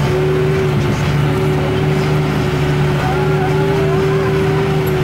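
New Holland TM120 tractor's diesel engine running steadily under load while pulling a plough, heard from inside the cab as an even drone.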